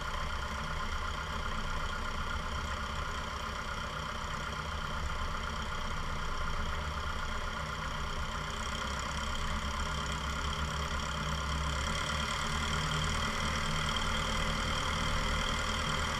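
Cessna 172 Skyhawk's piston engine idling steadily with the propeller turning as the plane rolls out and slows after landing.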